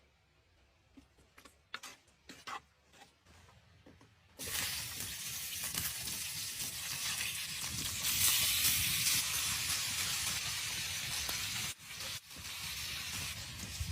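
Food sizzling in hot fat in a pan over a campfire, starting suddenly about four seconds in after a few faint clicks and running on as a steady hiss.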